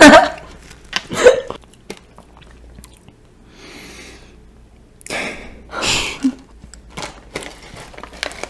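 Kohakutou crystal jelly candy being bitten and chewed close to the microphone: a few short crunching bites about halfway through, followed by smaller chewing clicks.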